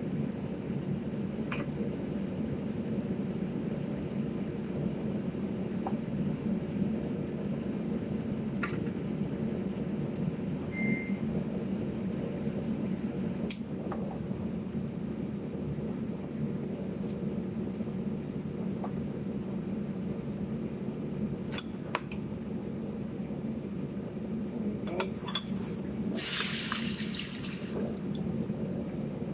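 Steady low room hum, with scattered small clicks and taps of hands working food over a salad bowl, and a short rushing hiss near the end.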